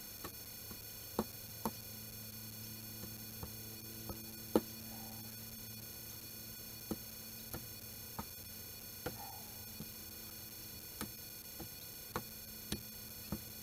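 Scattered sharp clicks and knocks of soil, stones and a small hand tool as earth is scraped and packed back into a fence post hole. The strongest knock comes about four and a half seconds in.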